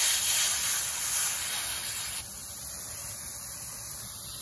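Garden-hose spray nozzle on its cone setting hissing as the water splashes over a head of cabbage being rinsed. A little over two seconds in, the hiss drops suddenly to a softer, steady spray.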